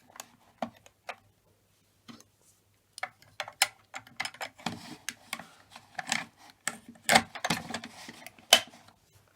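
Lid being handled and fitted back onto a homemade fire alarm box: a run of clicks, knocks and scrapes, a few at first and then a busy stretch from about three seconds in, with the loudest knocks near the end.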